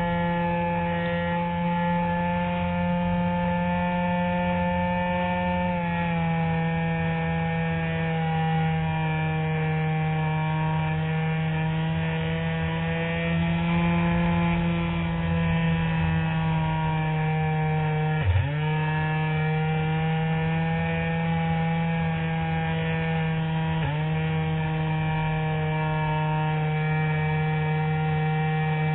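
Electric motor and spinning propeller of a Spectra RC glider under power, a steady whining hum heard from a camera on the fuselage just behind the prop. The pitch settles a little lower about six seconds in and dips sharply for a moment twice, briefly easing off, near the middle and again a few seconds later.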